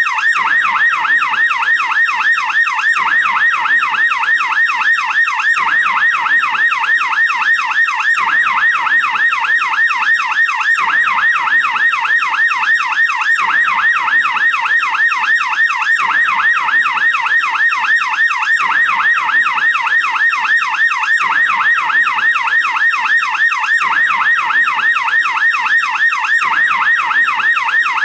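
American police car's yelp siren: a fast, repeating up-and-down wail that cycles several times a second, steady and unbroken.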